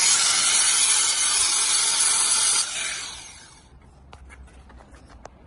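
Angle grinder cutting a coping stone: a loud, steady hiss that stops about two and a half seconds in and dies away over the next second as the disc winds down. A few light knocks follow near the end.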